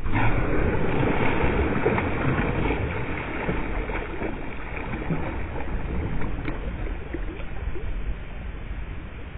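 Sea water splashing and sloshing around a kayak as dolphins break the surface close alongside, slowly fading.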